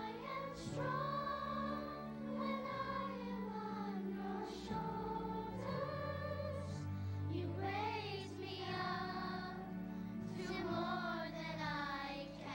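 A children's choir singing with long held notes over a steady sustained instrumental accompaniment.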